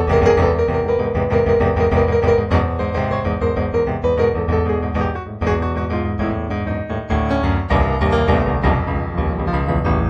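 Improvised solo piano music, a steady flow of notes with no pause.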